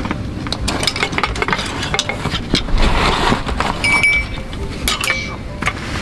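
Light metallic clinks and knocks, with rustling, as a loaded backpack is handled and hung on a tent pole; a few short ringing clinks come about four to five seconds in.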